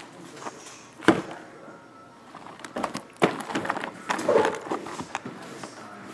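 Sealed, shrink-wrapped cardboard boxes of trading cards being handled and restacked on a padded table: a few separate knocks and scrapes as they are set down and shifted.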